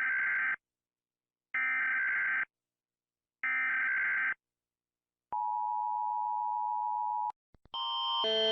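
Emergency Alert System broadcast tones: three short buzzy data bursts of the digital header, each just under a second long, then a steady two-tone attention signal at a lower pitch for about two seconds. Near the end a few clicks are followed by a louder alarm of alternating tones that starts and grows.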